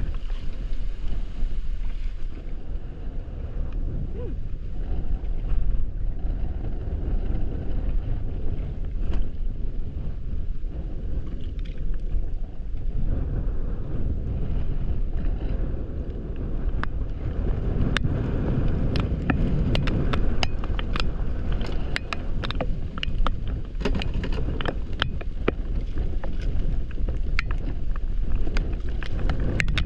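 Wind buffeting the microphone as a steady low rumble. Scattered sharp ticks and taps start about two-thirds of the way in and keep coming.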